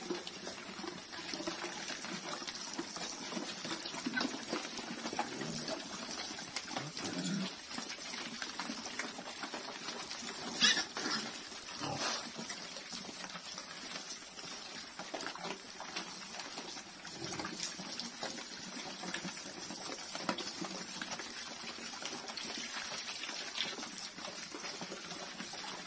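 A herd of village pigs eating wet feed from a trough, with a hose spraying water over them. A couple of sharper knocks stand out about ten and twelve seconds in.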